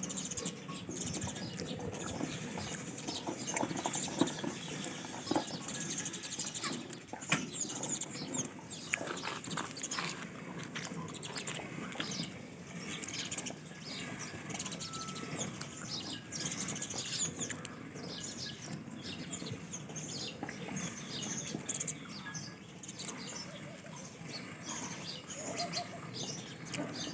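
Small birds chirping again and again over a steady farmyard background, with occasional sharp clicks and knocks.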